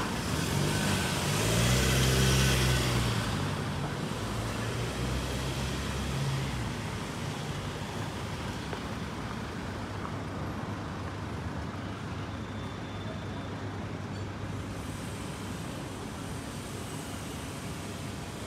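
A motor vehicle drives past, its engine and tyre noise swelling to a peak about two seconds in and fading by about six seconds, leaving a steady hum of distant traffic.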